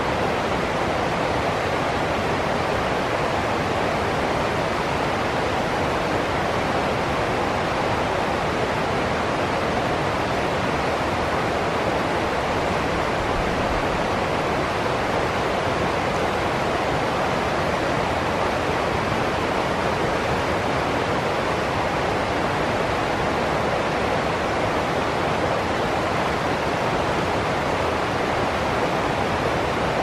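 Shallow rocky stream rushing over a small cascade of rapids: a steady, unbroken rush of water.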